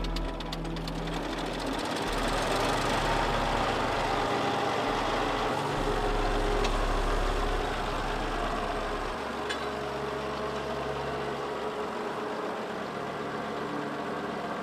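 Diesel engine of an Industrija Motora Rakovica (IMR) power unit running steadily.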